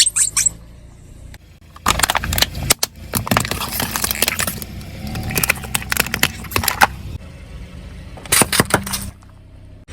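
Car engine running low and steady under three bouts of dense crackling and crunching as objects are crushed under the car's tyres.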